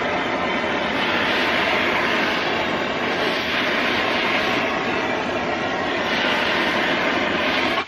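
Hand-held propane torch burning with a steady rushing hiss, its flame heating the end of black poly pipe to soften it so a barb fitting will slide in. The hiss cuts off suddenly at the very end.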